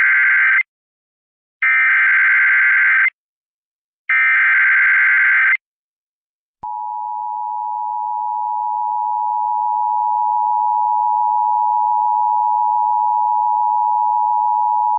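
Emergency Alert System SAME header: the end of one warbling data-tone burst, then two more, each about a second and a half long with short gaps between. About six and a half seconds in, the steady two-tone EAS attention signal begins and holds, the alert that precedes a severe weather warning.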